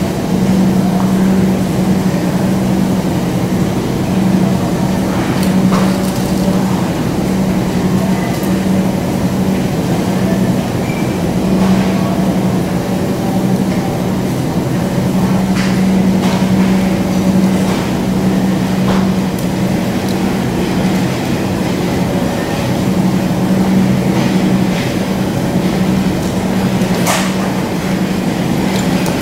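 Steady, loud, low mechanical hum of supermarket machinery such as refrigeration or ventilation, with a few scattered faint clicks.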